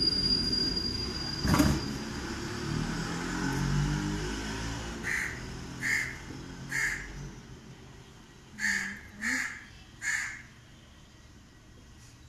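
A crow cawing in the background: six short caws, three and then three more after a pause. Before the caws there is a single sharp knock about one and a half seconds in, then a low rumble.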